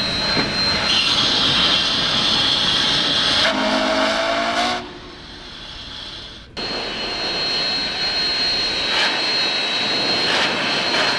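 Union Pacific No. 844, a 4-8-4 steam locomotive standing in steam, hissing steadily, with one short blast of its steam whistle about three and a half seconds in. The hiss drops away just after the whistle and comes back suddenly a couple of seconds later.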